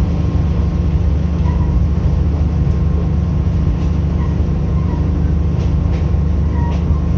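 Steady low rumble of a JNR KiHa 52 diesel railcar's twin DMH17H diesel engines and running gear, heard inside the passenger cabin, with a few faint short squeaks and clicks.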